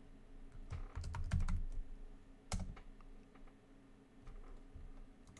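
Computer keyboard keystrokes typing a short name: a quick run of key clicks about a second in and a single click about two and a half seconds in.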